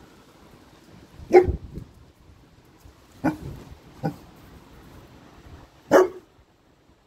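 Boerboel puppy barking four times in short single barks, the first and last the loudest.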